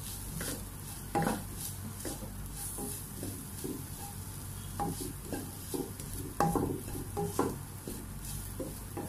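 A wooden spatula stirring and scraping a dry mix of grated coconut and sautéed onion around a nonstick kadai, with irregular knocks against the pan over a soft frying sizzle.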